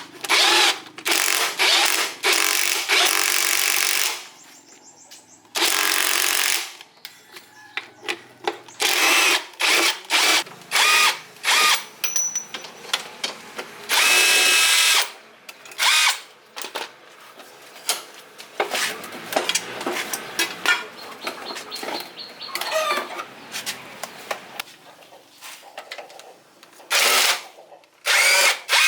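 A handheld electric power tool run in many short bursts, from a fraction of a second to about two seconds each, with brief pauses between them.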